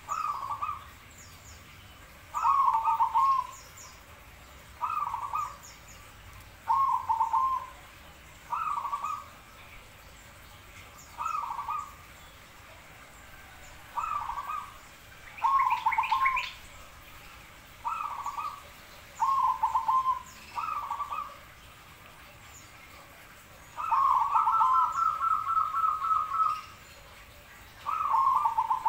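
Caged zebra dove (perkutut) cooing: short rolling coo phrases repeated every couple of seconds, with one longer phrase near the end that runs into a fast string of repeated notes.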